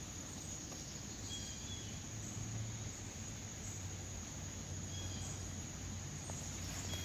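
Steady rain falling on a wet flagstone patio, an even hiss, under an unbroken high-pitched drone. A couple of short high chirps come through, about a second and a half in and again about five seconds in.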